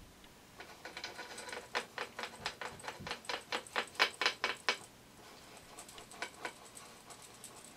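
Domed bristle scumbler brush scrubbed in small circles on canvas, laying in a white acrylic cloud: a quick run of brushing strokes, about four a second, that thins out to a few strokes near the end.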